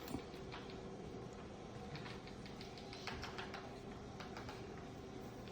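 Faint, scattered light clicks and taps of small objects being handled on a work surface, over a low steady hum.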